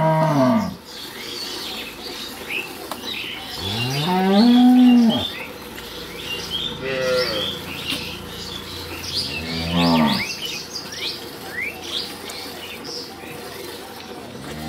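Cattle mooing repeatedly: a call dies away just after the start, a long loud moo comes about four seconds in, shorter moos follow near seven and ten seconds, and another begins right at the end.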